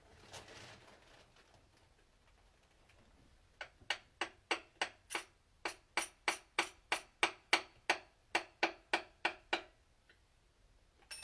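Hammer tapping a piston and connecting rod out of the cylinder bore of a Subaru FA20 engine block. The taps are sharp and regular, about twenty of them at roughly three a second, starting about three and a half seconds in and stopping a couple of seconds before the end.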